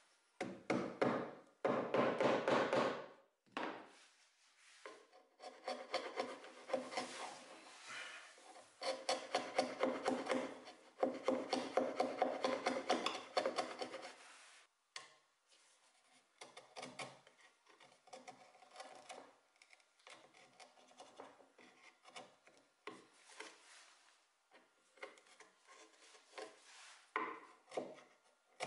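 Steel hand chisel cutting and scraping a broken wooden edge back to square, in quick rasping strokes. The strokes come in dense runs for the first half and turn sparser and lighter after about fifteen seconds.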